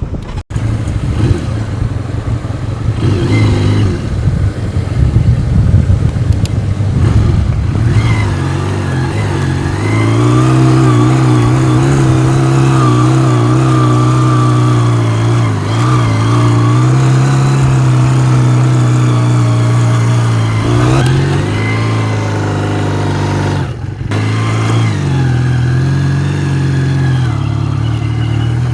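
Wind buffeting the microphone at first, then a vehicle's engine running steadily while under way, its pitch rising and falling, with a sharp rise about three-quarters through and a brief drop in level soon after.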